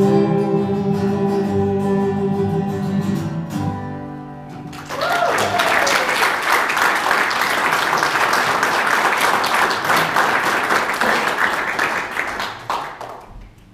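A held final sung note over a strummed acoustic guitar chord, fading away about four seconds in. Then audience applause for about eight seconds, with a brief rising shout as it starts, dying down near the end.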